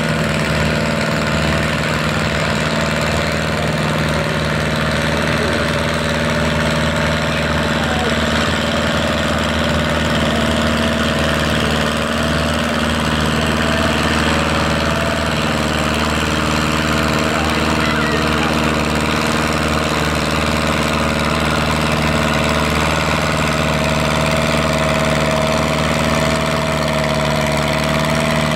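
Ford 961 Powermaster tractor's four-cylinder engine running steadily under heavy load while pulling a weight-transfer sled, its pitch holding even.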